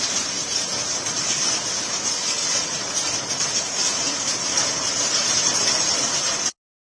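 Heavy rain pouring down in a steady, loud hiss. It cuts off abruptly shortly before the end.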